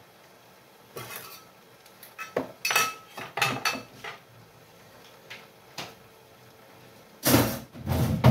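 Plates and cutlery clattering in a series of short clinks and knocks, as kitchenware is handled and set down, with two louder knocks near the end.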